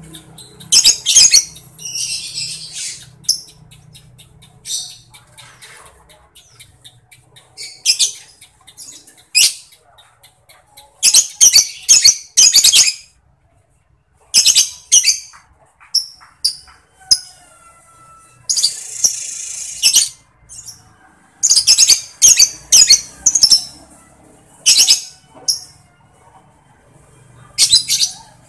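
Lovebird calling in loud, sharp, high chirps and squawks, broken by runs of rapid typing-like ticks (ngetik). About two-thirds of the way through there is one longer chatter of about two seconds (ngekek).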